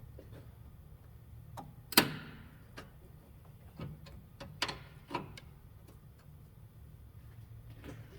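Scattered clicks and knocks of hand work on a car's battery and wiring, with one louder clank that rings briefly about two seconds in, over a steady low hum.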